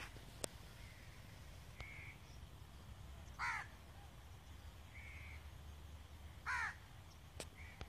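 A bird calling outdoors: two loud calls about three seconds apart, each lasting a fraction of a second, with a few softer short calls in between, over a faint low rumble.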